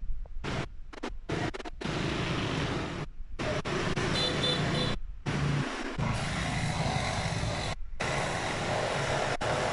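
Vehicle on the move: a steady engine rumble with road and wind noise, cutting out briefly several times.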